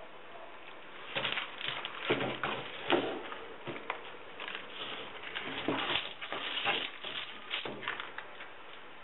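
Irregular scuffs, scrapes and light knocks from a fiberglass deck mold being handled on wooden blocks, with a brush working resin-wet fiberglass cloth. They start about a second in, and the loudest knocks come about two and three seconds in.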